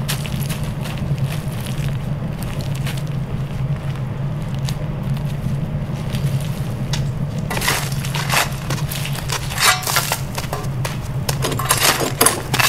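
Boots crunching over loose lumps of coal: irregular crunches, most of them in the second half, over a steady low hum.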